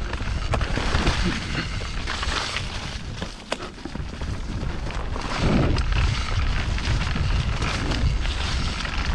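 Mountain bike ridden fast down a dirt forest trail: steady tyre noise with scattered rattles and knocks, under heavy wind buffeting on the camera's microphone. It gets louder about five and a half seconds in.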